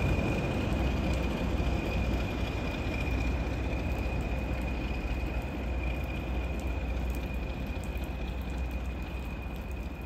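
Class 20 diesel locomotive's English Electric engine rumbling as the train draws away, fading steadily into the distance, with a steady high-pitched whine over the low rumble.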